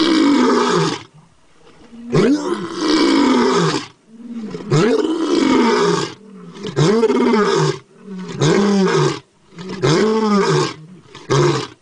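Tiger roaring over and over, about six roars in a row with short gaps between them, each rising and then falling in pitch; the roars come closer together near the end.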